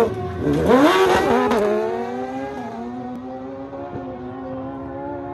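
Naturally aspirated drag-racing motorcycle accelerating hard down the strip. The engine climbs in pitch, drops at two quick gear changes in the first two seconds, then pulls on more steadily and fades as the bike runs away.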